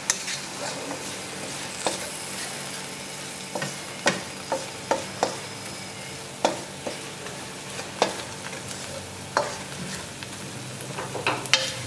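Barberries frying in ghee in a pan, sizzling steadily while a wooden spoon stirs them, with irregular sharp knocks of the spoon against the pan about once a second.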